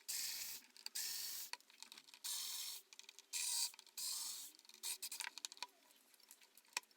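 Screwdriver backing out the screws of a battery charger's case: a run of short scraping, ratcheting strokes, then a few light clicks near the end.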